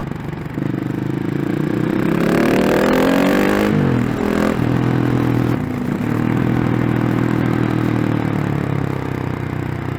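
KTM 690 SMC-R single-cylinder engine through a Remus slip-on exhaust, revving up under acceleration for about three seconds, dropping off sharply, then pulling at a steady pitch.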